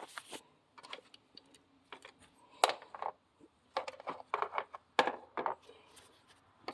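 Irregular clicks, taps and rustles from handling wire strippers on an insulated wire, with a couple of sharper clicks partway through.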